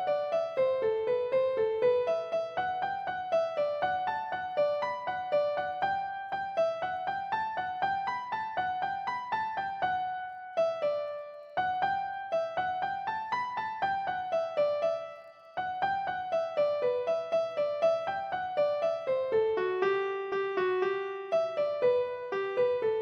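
Background piano music: a steady run of short notes, briefly dipping twice partway through.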